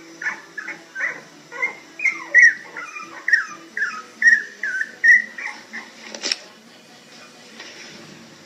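Puppy whining in a run of short, high cries, each falling in pitch, about two a second, stopping about five and a half seconds in. A single sharp click follows shortly after.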